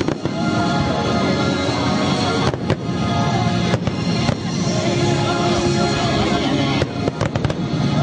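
Fireworks bursting over loud music, with sharp bangs about two and a half seconds in, near four seconds, and a quick cluster of pops near the end.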